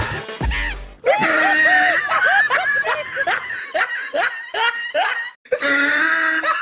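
A person laughing in a high voice: a run of short rising-and-falling 'ha' sounds, about three a second, starting about a second in. It breaks off briefly near the end and is followed by a held vocal note.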